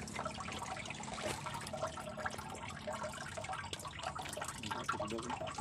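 Seawater lapping and splashing against the hull of a small wooden boat, an irregular wash full of little slaps and drips.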